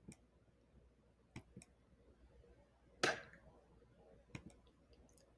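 One short, breathy voiceless consonant about three seconds in: the isolated phonics letter sound /p/, spoken as a puff of air. A few faint clicks come before and after it.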